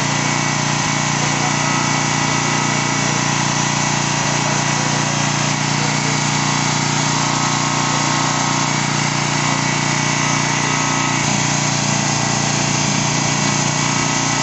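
A steady mechanical hum at constant pitch and level, like a motor or engine running, with no change as the bed stops moving.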